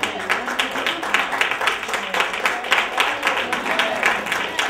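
A church congregation applauding, many hands clapping together steadily, with a voice calling out "Amen".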